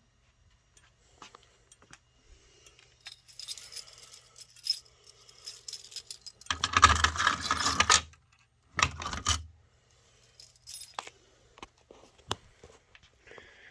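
Metallic jingling and rustling, with two louder clattering bursts in the middle and scattered clicks.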